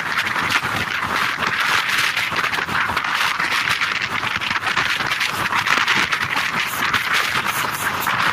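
Steady rush of a passenger train running at speed, heard from a coach window: rolling wheels on the rails mixed with wind rushing over the microphone.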